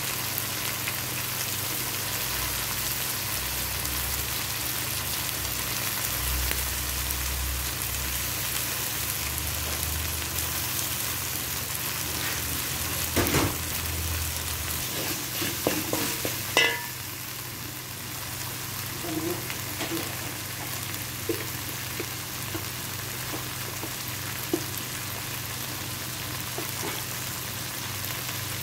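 Chicken and mixed vegetables sizzling in oil in a metal wok while being stirred with a wooden spatula. A few sharp scrapes and knocks of the spatula against the pan come about halfway through, and after that the sizzle is a little quieter.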